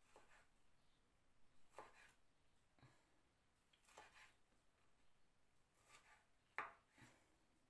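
Faint knife strokes through small pickled onions onto a wooden cutting board: about seven irregular cuts a second or so apart, the sharpest near the end.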